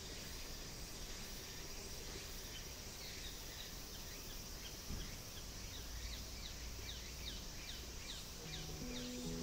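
Woodland ambience of insects droning steadily, with a run of quick, falling chirps from about three seconds in. Music with steady low notes starts just before the end.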